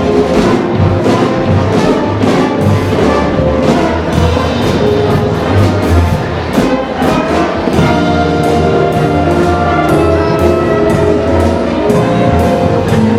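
Live jazz band playing: brass melody over a steady drum beat and bass.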